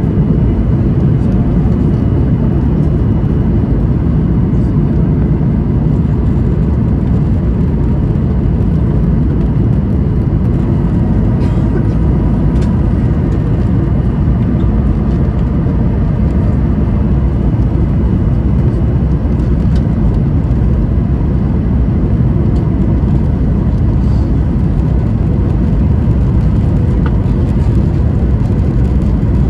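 Steady jet engine and airflow rumble heard inside the cabin of a Boeing 737-800 powered by CFM56-7B turbofans, deep and unchanging, with a faint thin whine above it.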